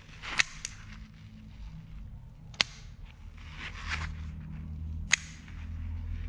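Daiwa Tatula SV baitcasting reel giving four sharp clicks as it is worked in the hands, with a soft rustle of handling about two-thirds of the way through.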